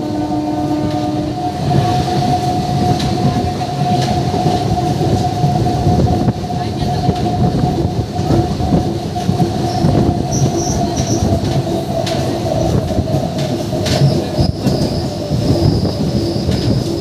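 MEMU electric multiple-unit train running at speed, wheels rumbling and clacking over the rails, with a steady whining tone throughout. A horn note cuts off about a second in.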